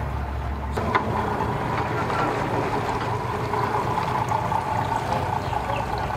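Boat engines idling at low speed: a Sea-Doo personal watercraft's low rumble, then, after a change just under a second in, the steady hum of a Mercury 275 outboard motor idling.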